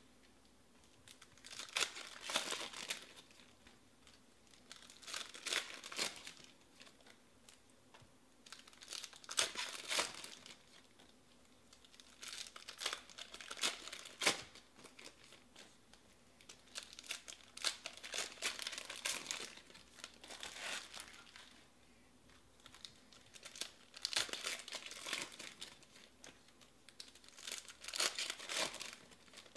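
Foil trading-card pack wrappers being torn open and crinkled by hand, in short crackling bursts every few seconds.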